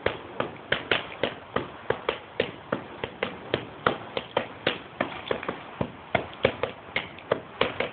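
Punches landing on focus mitts in quick succession, a run of sharp slaps about three to four a second.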